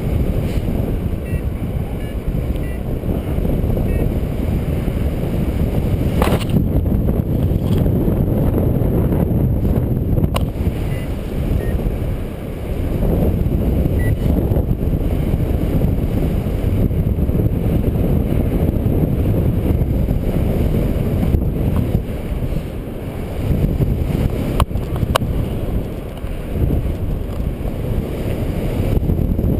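Wind buffeting the camera's microphone during paraglider flight: a steady, fluctuating low rumble of airflow, with a few brief sharp clicks.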